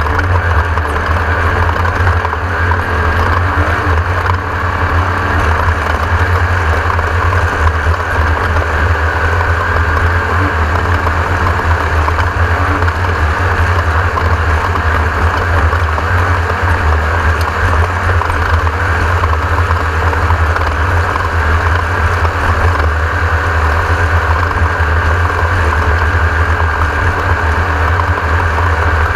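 Class 1600 off-road race car's air-cooled VW engine running steadily, a deep, even drone with a hiss above it.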